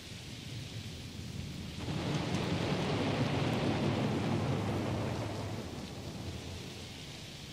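Steady rain with a long roll of thunder that swells about two seconds in and slowly fades away.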